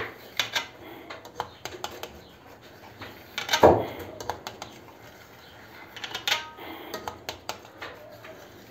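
Knife blade tapping and scraping against the bottom of a round metal tray while cutting a set wheat-starch pudding into pieces: a run of light clicks, with one louder knock about three and a half seconds in.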